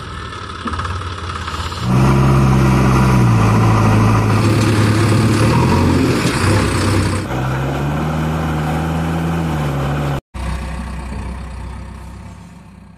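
JCB 3DX backhoe loader's diesel engine working hard while its front bucket tips out soil. Its pitch sags, then revs up and holds. It cuts out for an instant about ten seconds in, then fades away near the end.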